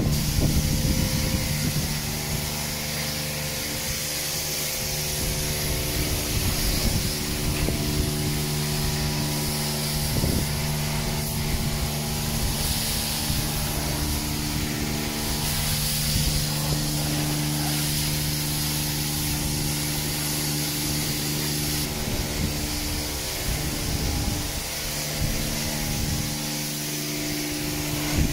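Self-service car-wash pressure washer: the steady hum of the pump with the even hiss of the high-pressure water jet spraying a quad bike.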